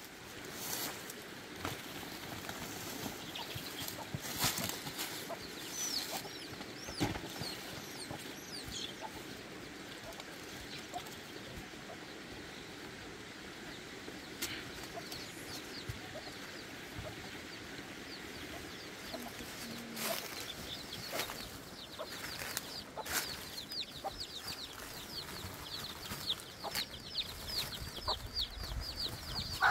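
Birds chirping: short, high, falling chirps, scattered at first and then a rapid, dense run near the end, over a soft steady hiss. Scattered knocks and rustles of things being handled.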